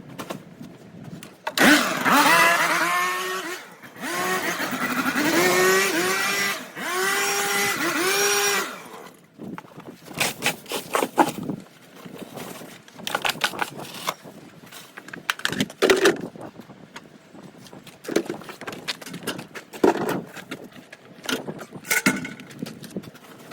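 A small petrol engine of a handheld garden power tool starts about two seconds in and is revved up and down in repeated short bursts, then cuts off about nine seconds in. Scattered clatters and knocks follow.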